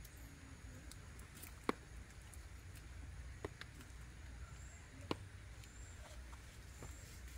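Quiet stillness over a low background rumble, broken by three short, sharp clicks spaced about a second and a half apart, with a few fainter ticks between them.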